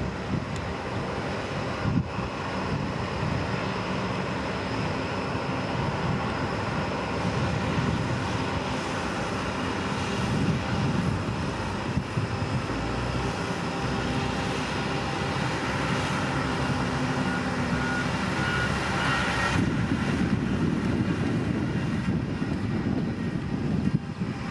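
Motor grader's diesel engine running steadily under load. A higher whine over the engine cuts off about three-quarters of the way through.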